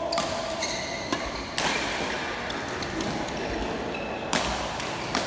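Badminton rally: several sharp cracks of rackets striking the shuttlecock, the loudest a little over four seconds in, with short high squeaks of shoes on the court floor between hits.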